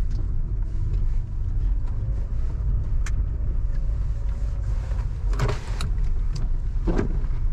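Inside a moving car's cabin: the steady low rumble of engine and road. A few short, sharp sounds come over it, about three, five and a half and seven seconds in.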